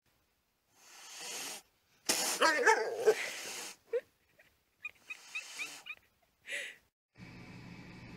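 Animal sounds: a breathy snort about a second in, then a loud wavering call lasting over a second, followed by a few short high chirps.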